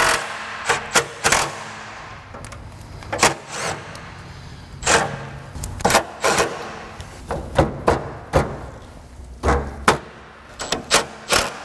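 Scattered sharp clicks, taps and knocks, about fifteen spread over the stretch: a cordless drill and metal brackets being handled and set against a truck's radiator support.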